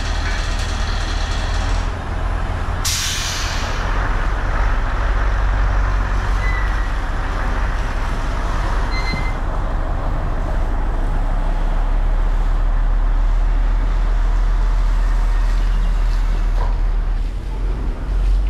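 Heavy engine running steadily with a strong low hum, cut by a short sharp hiss about three seconds in.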